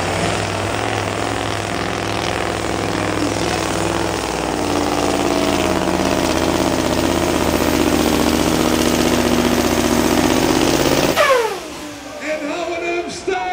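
Mack cab-over pulling truck's diesel engine running flat out under load as it drags the weight-transfer sled, a dense steady engine note. About eleven seconds in the throttle is dropped and the engine's pitch falls away sharply.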